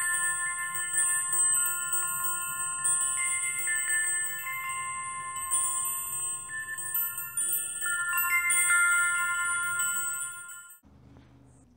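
Wind chimes ringing, many overlapping bell-like tones struck again and again and left to ring. They cut off suddenly about a second before the end, leaving only a faint low hum.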